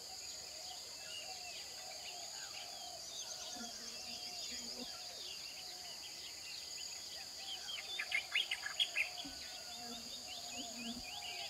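Outdoor nature ambience: insects trilling steadily at two high pitches while many birds chirp. About eight seconds in, a brief run of louder bird calls stands out.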